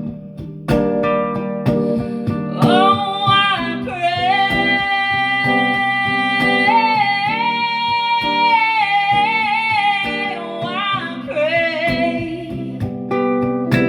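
Acoustic guitar strummed and picked under a female voice singing long held notes without words, from about three seconds in until about eleven seconds, after which the guitar carries on alone.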